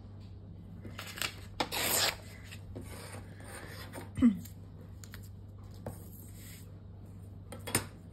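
Paper torn against a steel ruler, a rough ripping sound about a second in as a strip comes away. A sharp knock just after four seconds as the metal ruler is handled on the wooden table, then quieter shuffling of paper and another click near the end.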